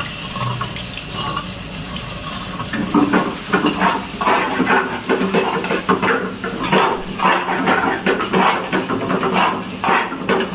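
Kitchen tap running, with irregular clattering and knocks starting about three seconds in, a few a second.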